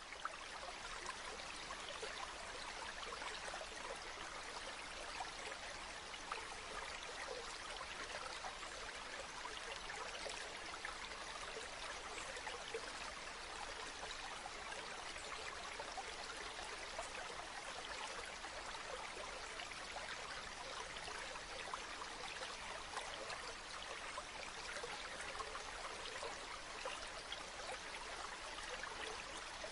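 Running water of a stream, flowing steadily with a constant rush and fine trickling detail.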